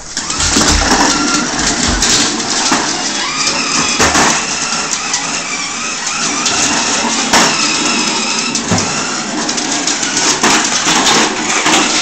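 Toy remote-control car's small electric motor whirring as it drives over a wooden floor, with repeated knocks and clatter as a bulldog goes at it.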